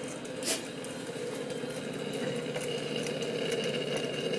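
Homemade beta-type Stirling engine, a tin-can cylinder with a rubber-glove diaphragm and a wooden flywheel, running steadily under its own power with a gas torch flame heating its hot end. A single sharp click about half a second in.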